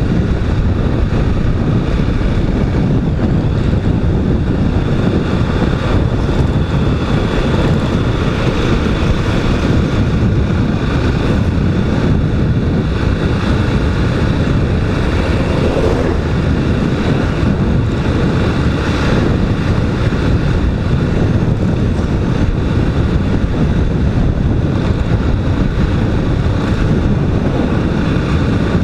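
Honda Twister motorcycle under way, its engine running steadily, with heavy wind rushing over the microphone.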